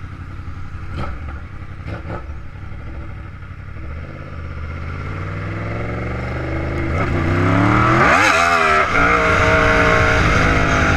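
Yamaha YZF-R1's inline-four engine pulling as the bike accelerates, getting louder with its pitch climbing from about four seconds in and a couple of sharp rises and drops in pitch around seven to eight seconds. Wind noise on the helmet camera builds with speed.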